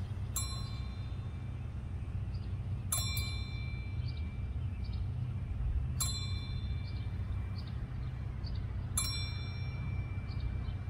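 A bell struck four times, about three seconds apart, each stroke ringing on in several clear tones: a memorial toll for the dead, one stroke at a time. A steady low rumble lies underneath.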